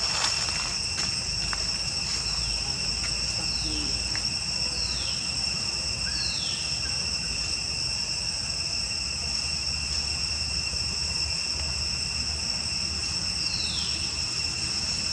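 Steady insect chorus, a shrill hum at several pitches that holds unbroken, with about five short falling calls over it.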